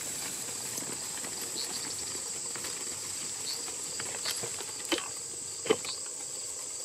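Steady high-pitched chirring of field crickets, with scattered light clicks and rustles from the sheep moving close by, a few sharper ones in the second half.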